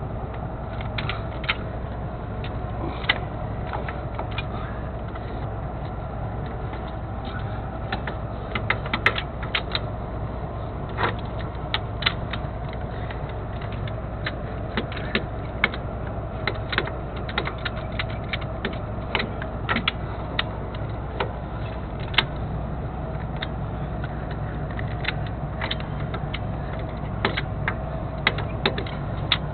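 Irregular light metallic clicks and ticks from hand work with tools and parts under a semi tractor's rear axle, over a steady low hum from an idling engine.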